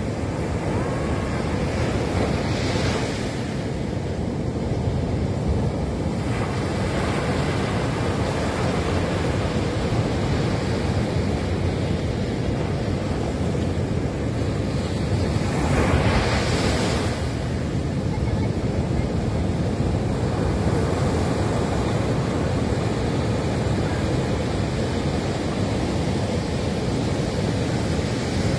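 Ocean surf breaking on a sandy beach: a steady rushing wash of waves, with louder crashes about three seconds in and again around sixteen seconds in.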